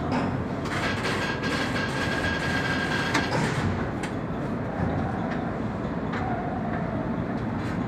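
Cement-bag truck loader's conveyor running with a steady rumbling clatter. A thin high squeal sounds for a couple of seconds about a second in, and a fainter lower whine follows later.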